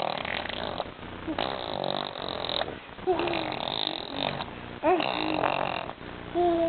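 Cat vocalising: a string of raspy, breathy sounds broken by a few short pitched calls that slide up and down, the last and loudest near the end.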